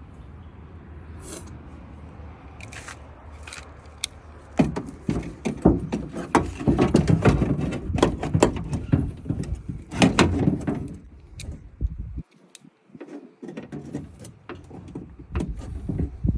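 Window regulator being worked into the inside of a pickup's door shell: irregular metallic clanks, rattles and scrapes, busiest in the middle stretch, with scattered knocks near the end.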